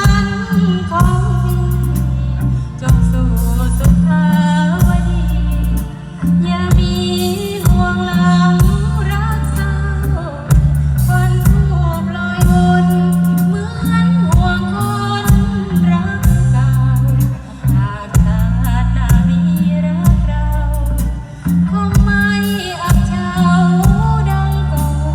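A woman singing with a Thai Isan band, over a strong bass line that steps between notes.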